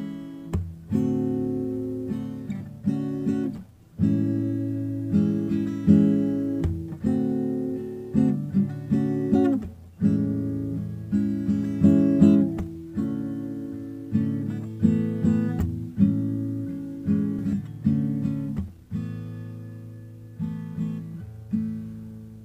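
Acoustic guitar music: strummed chords, each struck sharply and left to ring down, in a steady rhythm.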